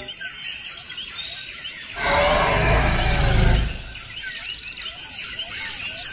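A deep, rough animal roar, a dinosaur sound effect, starts about two seconds in and lasts about a second and a half, over a steady bed of chirping bird calls.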